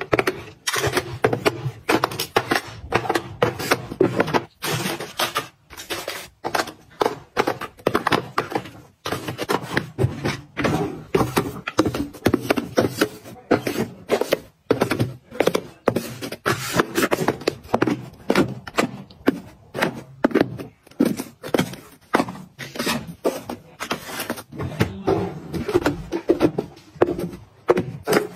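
Close-up handling sounds: a dense, irregular run of taps, clicks and thunks as containers and small items are picked up, opened and set down.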